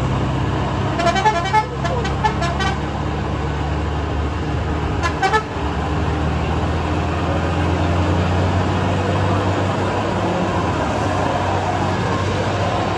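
Heavy diesel truck engine running in a steady low drone as the truck works round a hairpin bend, growing stronger in the second half. Several short horn toots come about a second in, and one more about five seconds in.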